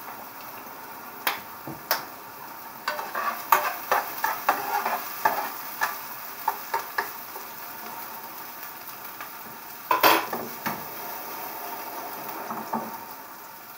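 Chopped onion sizzling in oil in a frying pan, stirred with a metal spoon that clicks and scrapes against the pan, most busily a few seconds in. A louder knock comes about ten seconds in.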